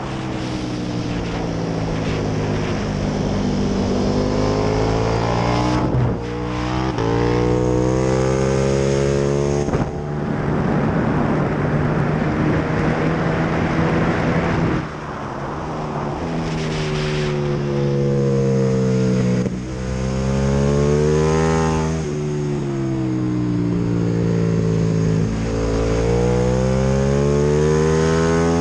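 KTM 1290 Super Duke R's 1301 cc V-twin engine at racing speed, revving up hard through the gears with a brief sharp break at each upshift, then falling in pitch as it is shifted down for corners, over a constant rush of wind.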